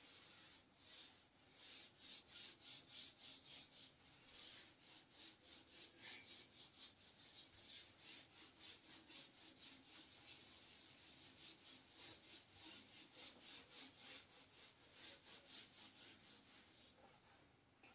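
Whiteboard being wiped clean: quick back-and-forth rubbing strokes, about three or four a second, faint.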